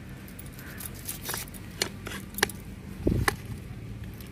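A raw rohu fish head being cut on an upright bonti blade: a few sharp clicks and scrapes of fish bone against the blade, with a dull thump about three seconds in.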